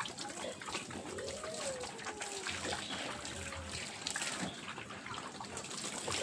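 Water splashing and trickling with many small knocks, and pigs' short pitched calls gliding up and down now and then.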